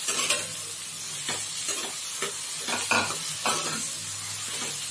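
Chopped tomatoes and shallots sizzling in oil in a metal kadai while a metal spoon stirs them, scraping and knocking against the pan about eight times.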